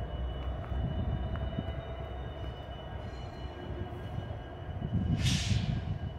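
Diesel freight locomotives running in a rail yard: a low steady sound with a faint high steady tone over it. A short, loud hiss comes in a little after five seconds.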